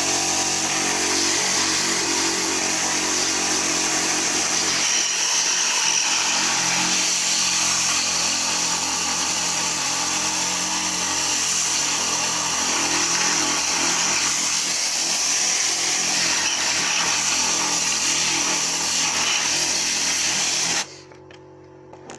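Tornador air-powered cleaning gun spraying a mix of compressed air, warm water and car shampoo at an alloy wheel. It makes a loud, steady hiss that cuts off sharply about 21 seconds in.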